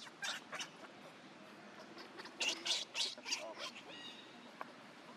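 Short, sharp, high-pitched animal calls: one just after the start, a quick run of them about two and a half seconds in, then a thin call with a steady pitch near four seconds.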